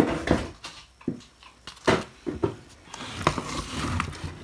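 Irregular clicks and knocks of hot air gun parts being handled on a workbench, with a soft hiss starting about three seconds in and lasting about a second.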